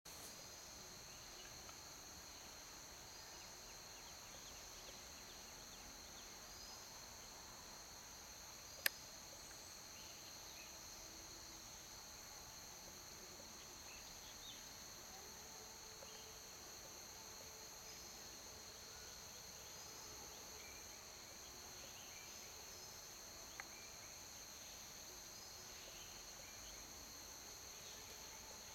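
Steady high-pitched drone of forest insects, several even tones held without a break. A single sharp click about nine seconds in, and a fainter one near the end.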